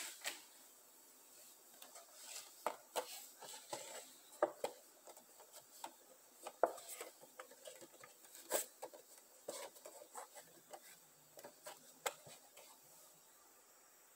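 Cardboard Funko Pop window box being handled and turned over in the hands: scattered light taps, clicks and rubbing of fingers on cardboard and the clear plastic window.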